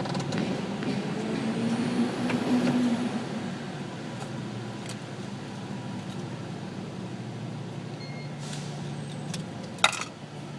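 Nissan Titan pickup's V8 engine running, its hum rising briefly early on and then settling, with a few faint ticks and one sharp clack near the end.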